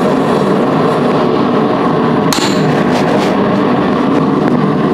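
Hammer striking a blunt chisel on a hot railroad spike, marking the center line of a forged leaf: a few sharp metallic strikes a little past halfway, over a steady loud background noise.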